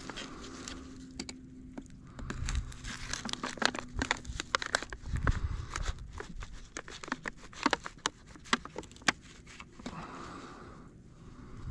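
Crinkling and crackling of something being handled close up, a dense run of sharp irregular crackles through the middle that thins out near the end.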